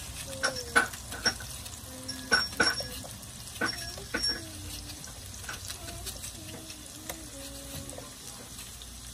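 Onion being cut and the slices dropped into a frying pan of oil and garlic: irregular sharp clicks and taps, most of them in the first half, over a soft steady hiss.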